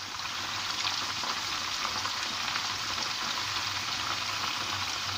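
Tandoori chicken quarters shallow-frying in hot oil in a wok: a steady, crackling sizzle.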